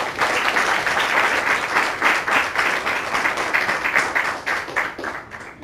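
Audience applauding: dense clapping that tapers off near the end.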